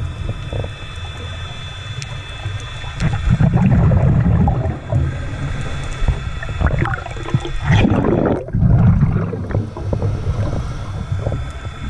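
Underwater sound through a camera housing: a scuba diver's exhaled bubbles from the regulator rumble and gurgle in two bursts about four seconds apart, over faint steady tones.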